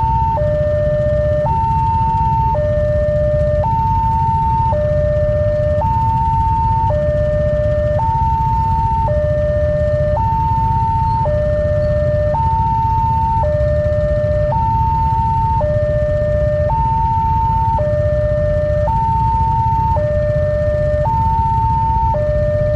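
Emergency vehicle's two-tone hi-lo siren, switching evenly between a high and a low note about once a second. A steady low rumble runs underneath.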